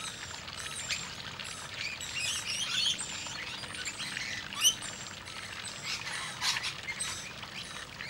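Rainbow lorikeets calling in a feeding flock: a busy run of short, high chirps that rise and fall, with one louder, sharp call a little past halfway.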